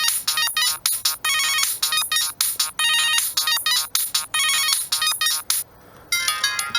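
Siemens M65 mobile phone ringtone: a fast melody of short electronic beeping notes that stops about five and a half seconds in. After a brief pause, a different ringtone starts near the end.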